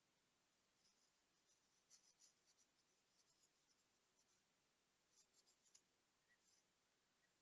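Near silence, with faint, high scratching and ticking of small hand tools on small parts, in two short clusters about a second in and about five seconds in.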